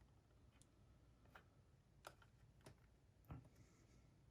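Faint, scattered clicks, about five in all, as the small parts of a Panasonic cassette Walkman are handled while it is taken apart.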